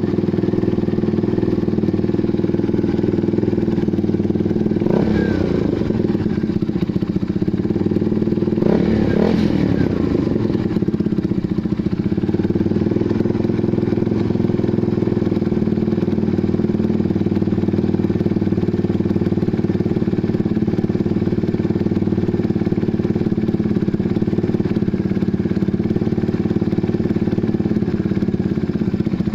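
Kawasaki Barako 175 FI single-cylinder motorcycle engine idling through an SC Project exhaust muffler after a cold start. The throttle is blipped twice, about five and nine seconds in, the pitch rising and falling back to idle each time.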